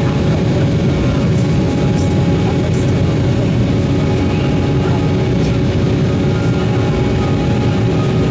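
Cabin noise inside an Embraer E190 airliner in flight: the steady drone of its CF34 turbofan engines and rushing airflow, even and unbroken, with a few faint steady hums on top.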